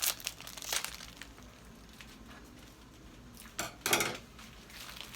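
A few separate clinks and knocks of dishes and utensils being handled, the loudest a short cluster about four seconds in.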